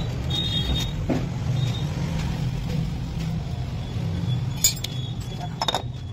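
A few light metallic clinks as the scooter's CVT parts are handled and fitted by hand: the variator pulley with its cooling fan going onto the crankshaft. They sound over a steady low hum.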